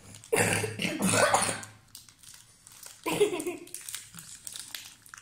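Plastic chocolate-bar wrapper crinkling and crackling as it is torn open, mostly in the last second or so, after bursts of a child's laughter and voice.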